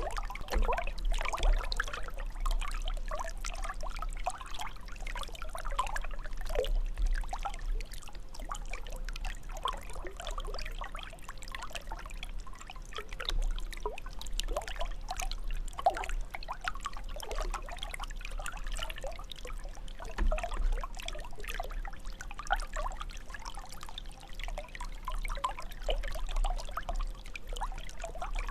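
Fountain's water jet splashing and trickling steadily as the water falls.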